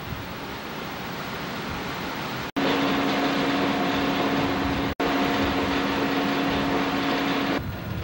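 Wind and sea noise on the microphone, then from about two and a half seconds in a louder, steady hum of the cargo ship's machinery with a low drone tone, broken by a short dropout, ending shortly before the end.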